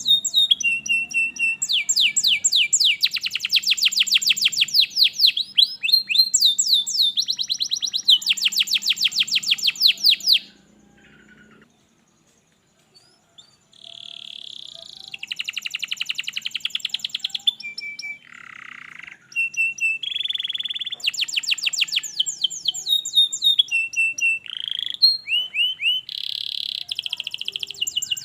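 Domestic canary singing in long, fast trills and rolling phrases of rapidly repeated high notes, broken by a silence of about three seconds in the middle.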